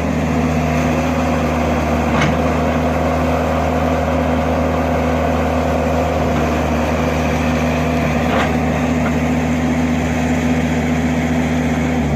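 Caterpillar 312 hydraulic excavator's diesel engine running steadily as the machine digs. Two brief knocks come about two seconds and eight seconds in.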